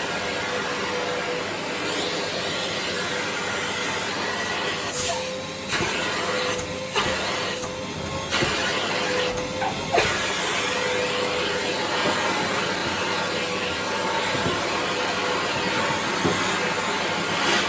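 Vacuum cleaner running steadily with a constant motor whine. Between about five and ten seconds in, the rushing air sound dips several times and there are a few knocks as the nozzle meets the surface being cleaned.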